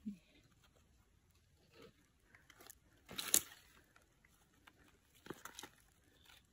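Faint rustling and crackling of leaves and stems as hands push through undergrowth and pick small wild mushrooms off a rotting log. The loudest crackle comes about three seconds in, with a few more shortly before the end.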